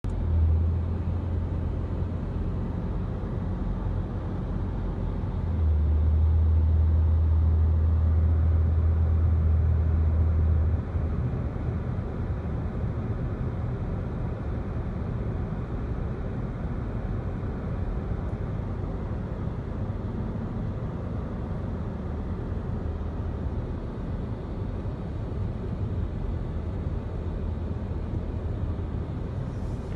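Steady low rumble of a car driving, with road and engine noise heard from inside the cabin. It grows louder for about five seconds, from about six seconds in, then settles back.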